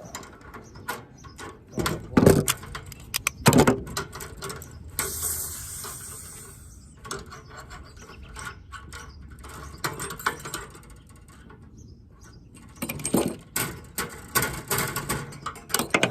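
Hand tools and metal parts on an air handler's refrigerant coil clanking and clicking in irregular sharp knocks as a fitting is undone to get at the metering device, with a short hiss about five seconds in.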